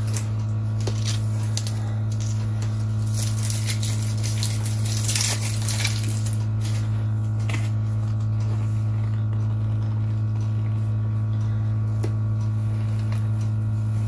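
Protective covering being pulled and crinkled off a new iMac's screen: scattered rustles and small clicks, busiest about four to six seconds in, over a loud, steady low hum.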